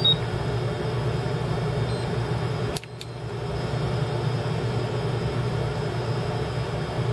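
Cooling fan running steadily during a 6 A balance charge. A short high electronic beep sounds at the very start. About three seconds in there is a click, the sound drops, then it builds back up over the next second.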